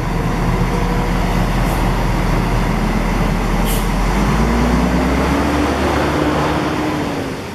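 Diesel coach bus engine running close by, its pitch rising from about four seconds in as the bus pulls away and accelerates. A short hiss of air is heard near the middle.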